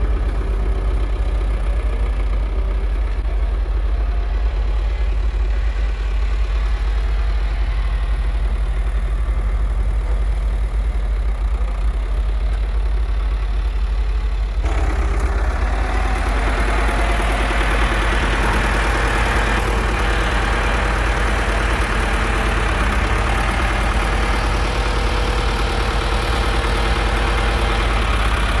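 Truck engine running steadily in low gear. About halfway through, a noisier, hissing rattle abruptly gets louder over the engine.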